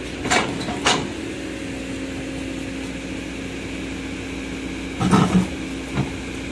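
Mini excavator's engine and hydraulics running steadily while the bucket pushes a large boulder, with a few short knocks, the loudest about five seconds in.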